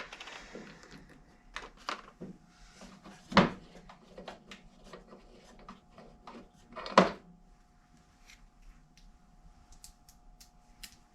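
Scattered clicks and clinks of tools and small metal parts being handled on a workbench, with two louder knocks, one near the middle and one a few seconds later.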